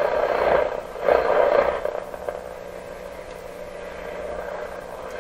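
A Canadian Westinghouse 981 valve radio's loudspeaker putting out AM broadcast-band static while the dial is tuned across the band. Two loud swells of noisy signal come in the first two seconds, then it drops to a quieter hiss with a faint steady hum between stations.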